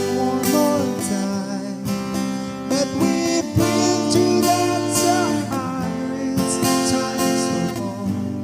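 Acoustic guitar strumming chords, with a few wavering held vocal notes over it in the middle.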